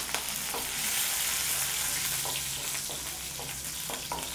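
Green chillies, curry leaves and mustard seeds sizzling in hot oil in a nonstick kadai, with a few faint crackles. The sizzle eases a little toward the end, when a wooden spatula stirs the pan.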